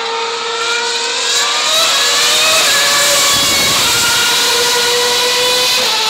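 A 2013 Formula 1 car's 2.4-litre V8 engine at very high revs, the revs climbing over the first two seconds as it accelerates down the straight. It is loudest about three to four seconds in as it passes, and its pitch drops as it goes away. A steady whistling tone runs underneath.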